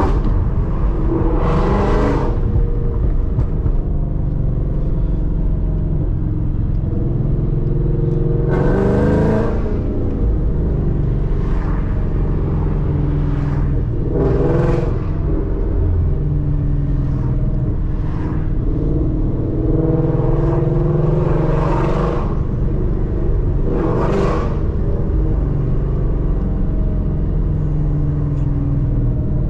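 Mustang GT's 5.0 V8 cruising in gear after an upshift, a steady engine drone with road noise. Several brief whooshes, each about a second long, come and go over it.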